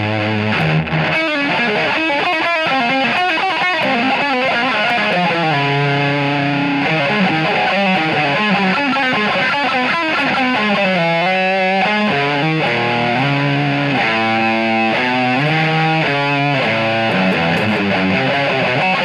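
Ibanez S470 electric guitar played through distortion and effects, its notes swooping down and back up in pitch, with fast wavering warbles. There is a deep dive and return near the middle.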